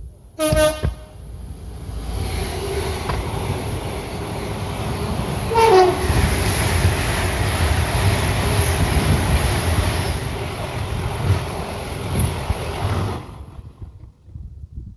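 A UK passenger train gives a short horn blast just after the start, then rushes past with a heavy rumble and wheel clatter. About six seconds in a second short horn note drops in pitch as the train goes by. The sound cuts off sharply about thirteen seconds in.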